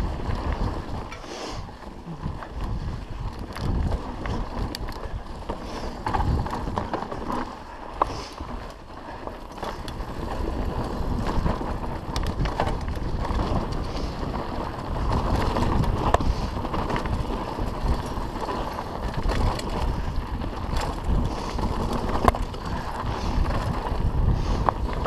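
Mountain bike riding fast downhill on a dirt singletrack: tyres rumbling over the trail and the bike rattling, with frequent short knocks from bumps.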